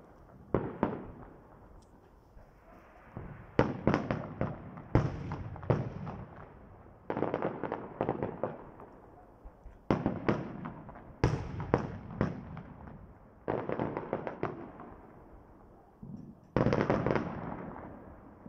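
Aerial fireworks shells bursting in a display: sharp bangs come in clusters every second or two, each trailing off into a fading echo.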